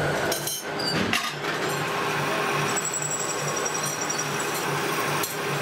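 Belt-driven metal lathe running, with a regular low pulse about twice a second. A few metallic clinks come in the first second or so.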